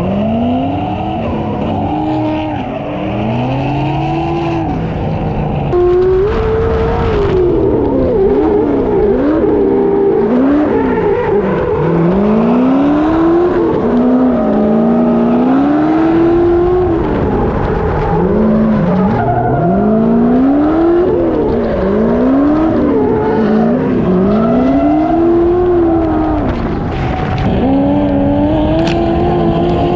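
Drift car engine revving hard, its pitch sweeping up and falling back over and over as the throttle is worked through the slide, with tyre squeal underneath. The sound changes abruptly about six seconds in.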